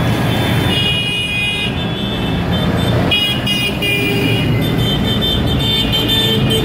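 Diesel tractor engines running as tractors drive past close by: a Massey Ferguson going by first, then a John Deere coming up. Steady high tones sit above the engine drone for most of the time.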